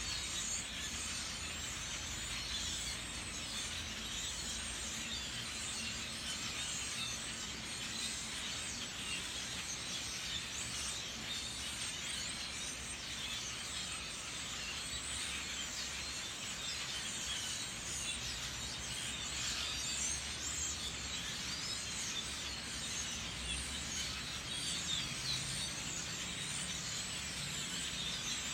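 A large flock of birds calling all at once: a steady, dense mass of many overlapping high chirps.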